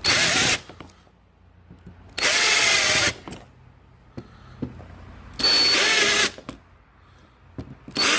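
Power drill running in short bursts of about a second each, four times, with the motor winding up and down, as a bit drills the heads off plastic pop rivets holding a door handle to a door panel.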